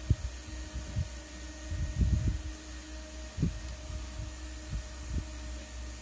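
Irregular dull low thumps and knocks from hands turning and repositioning the plastic swivelling heads of a dual USB dashboard fan, over a steady low hum with a faint constant tone.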